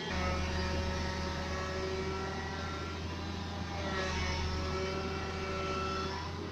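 Hitachi hydraulic excavator's diesel engine running under load, a steady low drone with steady whining tones above it, as the machine pushes against an overturned excavator.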